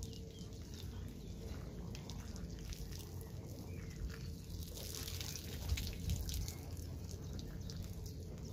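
Water splashing and dripping from a homemade camping shower fed from a water canister, an irregular crackle of drops over a steady low rumble.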